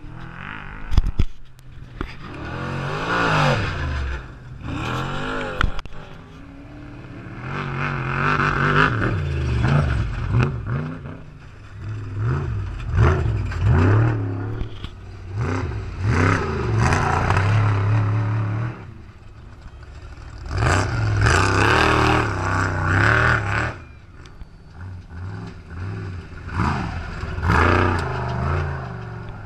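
Off-road race trucks passing at speed one after another, each engine revving hard, swelling loud as it goes by and fading, several times over. Stones and gravel clatter as the tyres throw them up.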